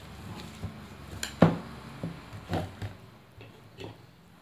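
A plastic rechargeable emergency lantern being handled and tipped over to be opened: a handful of knocks and clatters, the loudest about a second and a half in.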